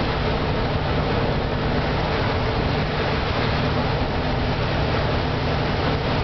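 Steady interior noise of a city bus: a low engine hum under an even rushing noise, with no change in pace or pitch.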